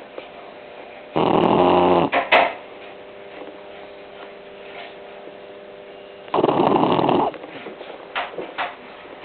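Eleven-week-old Shar Pei puppy snoring in its sleep: two long snores, each about a second, roughly five seconds apart, each followed by a couple of short, quieter breaths.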